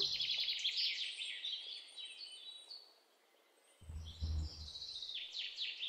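Dough for custard cream donuts sizzling and crackling in hot frying oil in a pan, with a brief low rumble about four seconds in as a spoon turns the pieces.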